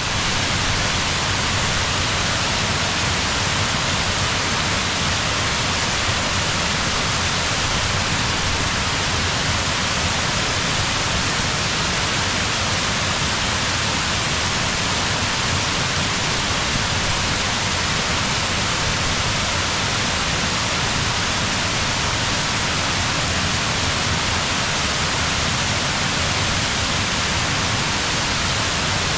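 Steady, loud rushing of muddy floodwater flowing fast through a rocky gully.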